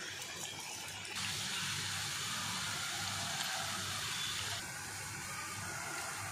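Chicken pakoda fritters deep-frying in hot oil in a pan, a steady sizzle and bubbling. It gets louder just over a second in as more pieces of batter go into the oil.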